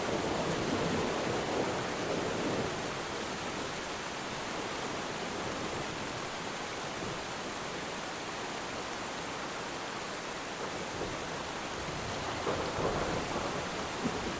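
Steady rain falling on water, with distant thunder rumbling that swells in the first couple of seconds and again near the end.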